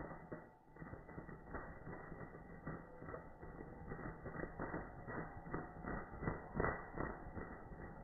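Bulbuls' harsh, rattling 'rik' calls: an irregular run of dry clicks, loudest about two-thirds of the way in. These are the aggressive calls of a wild bird challenging a caged decoy.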